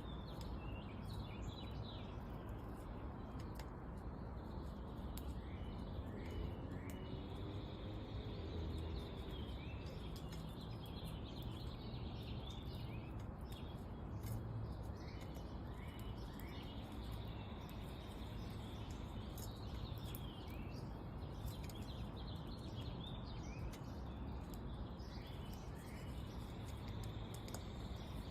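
Small songbirds chirping around a bird feeder: short, high, quickly falling chirps, scattered singly and in small clusters. A thin high tone comes and goes, all over a steady low background rumble.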